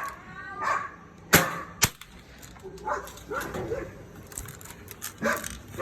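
An air gun fires one sharp shot about a second in, followed half a second later by a shorter, fainter click.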